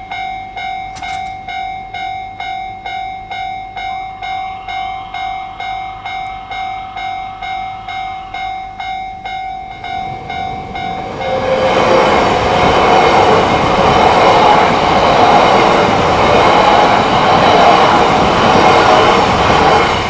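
Japanese level-crossing warning bell ringing in a steady rapid rhythm, about two strokes a second. About eleven seconds in, a train passes over the crossing and its loud running noise mostly covers the bell.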